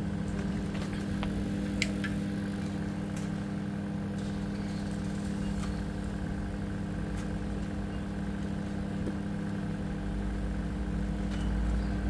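Bajaj 1701 MT DLX microwave oven running with its cover off: a steady mains hum from the transformer and fan. The oven runs but does not heat the water, which the repairer takes for a faulty magnetron.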